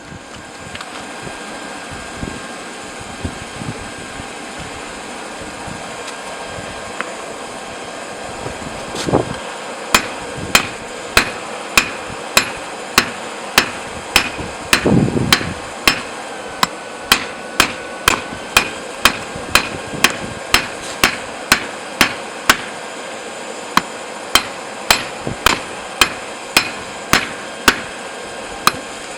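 Hand hammer drawing out a hot railroad spike on an anvil, thinning it for a knife blade. The blows are steady and ringing, about one and a half to two a second. They start about a third of the way in, with a brief pause near the end, over a steady rushing background noise.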